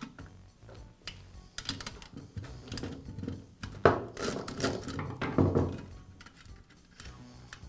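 Small metal clicks and taps as a screwdriver and nut driver work a screw and nut on a sheet-metal fan-heater housing, then louder knocks and clatter about four to six seconds in as the metal housing is handled on the workbench.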